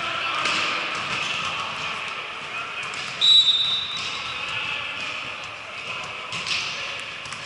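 Echoing gym during volleyball play: a hubbub of players' voices, scattered thuds of balls being hit and bouncing, and one short high whistle blast about three seconds in.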